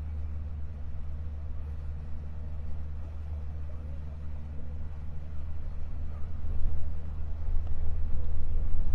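A boat's motor running under way, a steady low drone, getting louder from about six seconds in.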